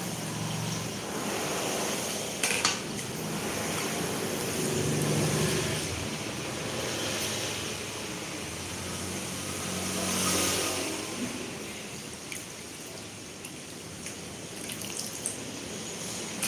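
Hands swishing leafy greens in a steel basin of water: water sloshing and dripping, with wet leaves rustling. Two sharp knocks come about two and a half seconds in.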